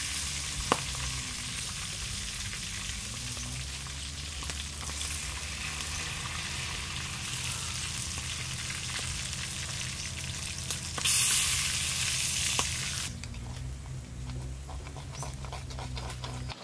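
Steady sizzling hiss of food frying, with one sharp click about a second in and a louder surge of sizzle for a couple of seconds past the middle.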